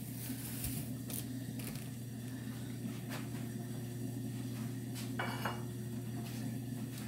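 A few light clinks and knocks of kitchenware, a small cluster about five seconds in, over a steady low hum.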